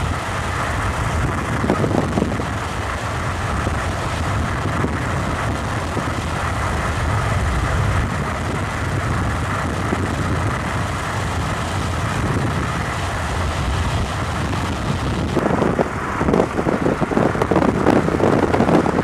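Subaru car driving at speed, heard from inside the car: steady road and engine noise, becoming rougher and more uneven near the end.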